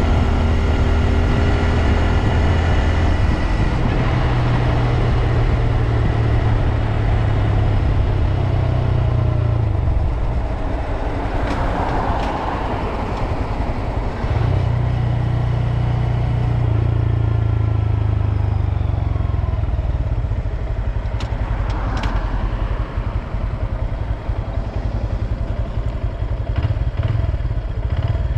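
2022 Honda Grom's 125 cc single-cylinder engine running on the road, its note stepping up about four seconds in, dropping about ten seconds in and rising again a few seconds later, with a few brief clicks.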